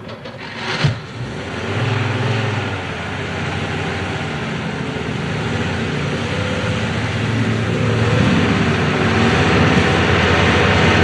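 Car engine sound effect, running with its pitch wavering up and down and slowly growing louder, after a sharp click about a second in.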